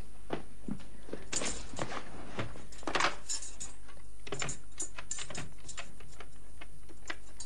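Clicks and clatter of a corded telephone being picked up and dialled: irregular clusters of short, sharp clicks, the loudest about three seconds in.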